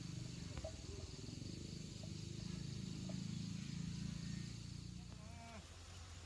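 Insects chirping steadily over a louder low, steady rumble outdoors.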